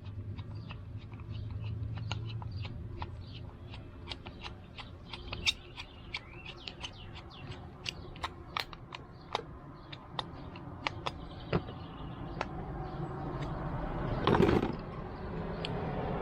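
Irregular light clicks and taps of small metal carburetor parts being handled and refitted by hand, with a brief louder rush of noise about fourteen seconds in.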